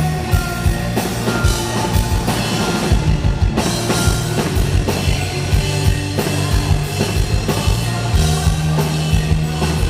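A rock band playing live through a PA, with a driving drum kit, bass, guitar and keyboards in an instrumental passage without vocals.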